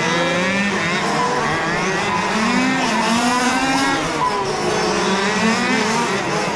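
Several large-scale RC F1 cars' two-stroke petrol engines revving up and down as they race. Their pitches rise and fall and overlap over a steady low drone.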